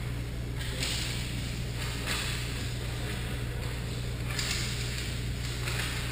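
Ice hockey rink sound: a steady low hum, with repeated hissing scrapes of skate blades on the ice, each about a second long.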